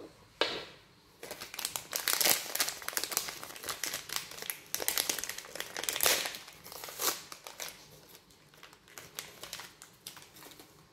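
Crinkly sealed wrapper packets from a Zuru Mini Brands capsule being pulled open and unfolded by hand. The crinkling starts about a second in, is dense for several seconds, and thins out near the end.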